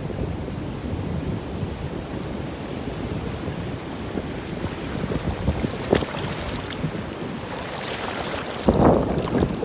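Wind rumbling on the phone microphone over the wash of shallow surf. Near the end a wave rushes in, a louder swash of foaming water.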